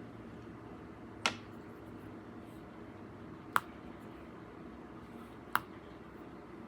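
Three sharp clicks about two seconds apart, over a faint steady hum.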